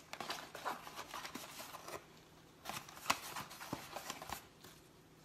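A satin ribbon being slid off a cardboard bakery box and the box being handled: soft rustling and scattered light taps, the sharpest about three seconds in.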